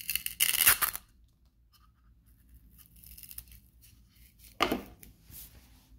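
Velcro hook-and-loop squares rasping as a plastic wireless charging pad is worked onto a 3D-printed plastic tray: a loud rasp in the first second, then a shorter one about four and a half seconds in.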